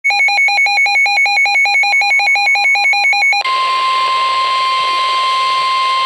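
Midland NOAA weather radio sounding a tornado warning alert: rapid electronic beeping, about six beeps a second. About three and a half seconds in, the beeping gives way to the broadcast's single steady warning alarm tone over radio hiss.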